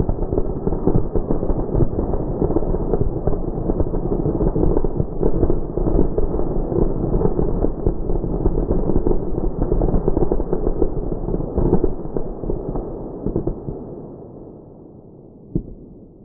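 An M4000 firecracker pack, 4,000 firecrackers lit still in their container, going off in a rapid, dense crackle of pops. The crackle thins out about twelve seconds in and dies away, with one last pop near the end.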